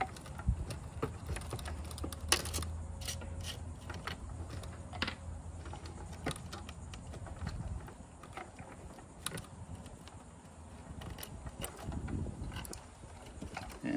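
Electrical wires being handled and twisted apart by hand inside a boat-lift control box: scattered light clicks and rattles of wire, plastic and metal, with a low rumble through the first half.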